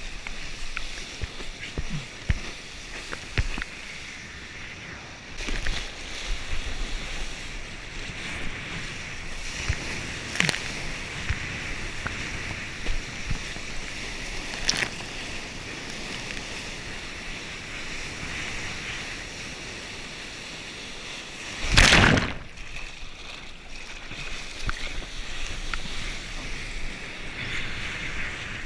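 Broken surf and whitewater hissing and splashing close to a surfboard-mounted action camera, with wind buffeting the microphone. There are short splashes throughout and one loud splash burst about three quarters of the way through.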